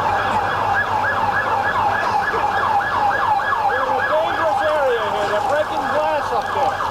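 Emergency vehicle siren on a fast yelp, about four rising-and-falling sweeps a second. From about four seconds in, a second, lower siren wavers more slowly underneath it.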